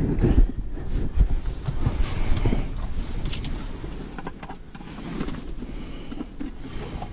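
Gusty wind buffeting the microphone as a low, uneven rumble, heaviest in the first few seconds and easing after about four seconds, with scattered light knocks and rustles.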